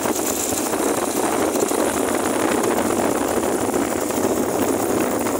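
Steady noise of a vehicle moving along a road, engine and road noise mixed with wind on the microphone.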